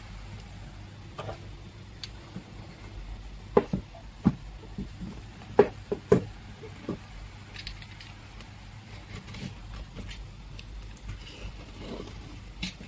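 A cardboard parcel being handled, with a cluster of sharp knocks and taps against the box a few seconds in, then fainter scratching as a snap-off utility knife slits the packing tape. A steady low hum runs underneath.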